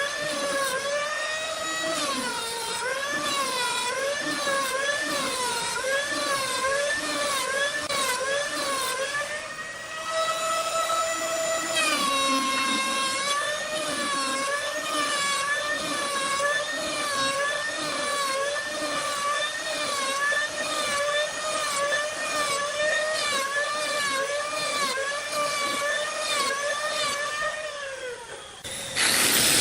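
Electric woodworking power tool motor whining, its pitch dipping and recovering about once a second as it is repeatedly loaded in the wood. It rises and steadies briefly when running free about a third of the way in, then winds down near the end.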